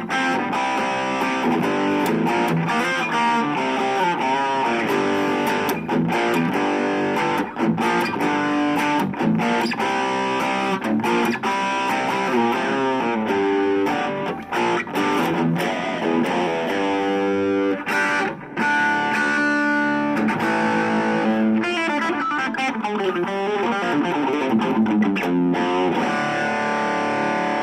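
Harley Benton CST24-HB electric guitar played through a Blackstar Fly 3 mini amp: lead playing with fast single-note runs, including quick descending lines.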